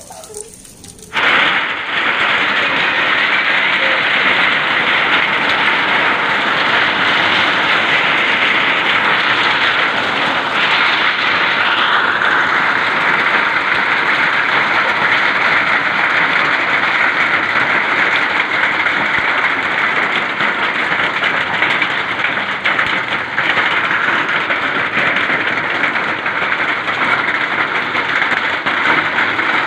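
Heavy hail falling: a dense, steady rush of hailstones striking the ground and roofs, starting abruptly about a second in.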